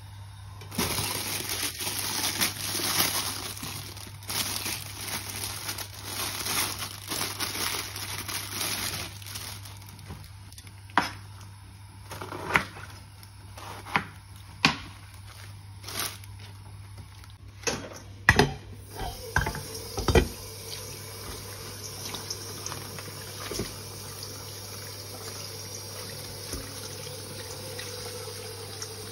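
A rushing noise for about the first ten seconds. Then a series of sharp knocks, about one a second, as napa cabbage is cut up on a plastic cutting board. Then tap water runs steadily into a stainless steel colander as the cabbage leaves are rinsed under it.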